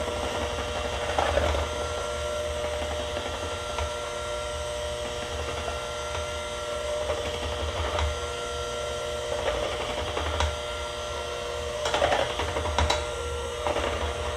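Electric hand mixer running steadily, its beaters whirring through liquid pumpkin pie filling in a stainless steel bowl, with a few brief knocks now and then.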